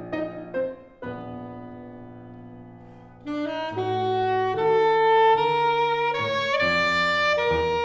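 Live chamber music with saxophone and piano: a chord about a second in dies slowly away, then from about three seconds in a louder passage of held notes moving step by step.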